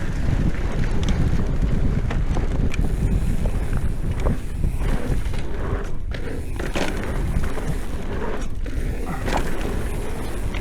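Mountain bike ridden fast down a dirt trail over jumps: wind rumbling on the microphone over tyre noise, with scattered knocks and rattles from the bike.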